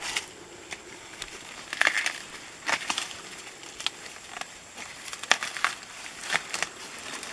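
Corn plants rustling and crackling in irregular bursts as green ears of corn are broken off the stalks by hand, the dry leaves crinkling. The sharpest cracks come about two and five seconds in.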